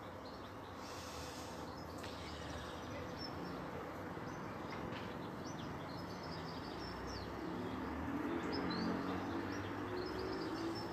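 Steady outdoor background noise with small birds chirping now and then.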